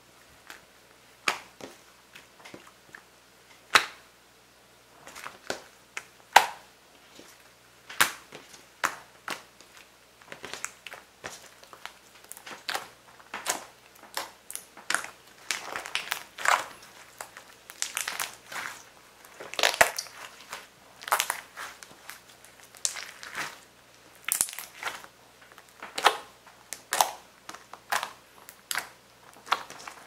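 Hands squeezing, pressing and stretching glossy green slime, giving irregular sticky clicks, pops and squelches. The pops are sparse at first and come thicker and faster later on.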